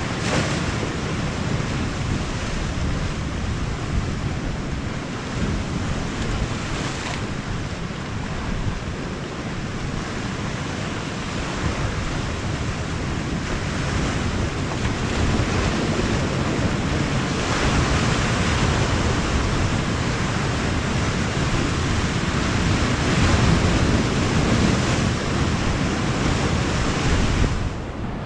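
Sea waves washing and breaking on the shore, a continuous rushing wash that swells and eases, with wind buffeting the microphone. The level drops suddenly near the end.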